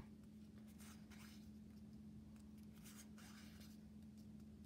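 Near silence with a few faint, brief rustles of trading cards sliding against each other as a stack is flipped through by hand, over a steady low hum.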